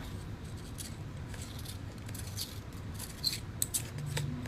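Small plastic clicks and rubbing as the twist-off battery cap of a clip-on lavalier microphone is turned by hand and worked loose.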